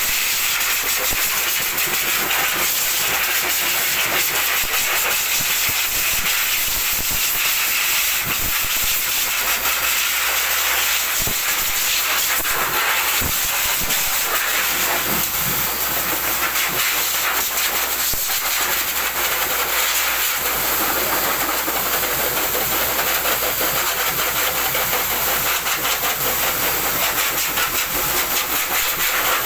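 High-velocity pet dryer blowing a steady, loud rush of air through its hose onto a dog's coat to dry it.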